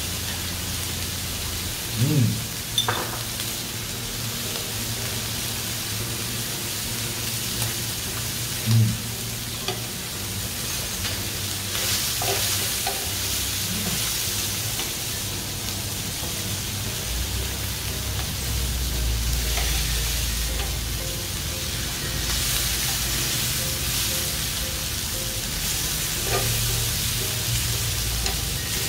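Pork belly and pork neck slices sizzling steadily on a hot grill pan as they are turned with tongs, with a few short thumps, the loudest about two and nine seconds in.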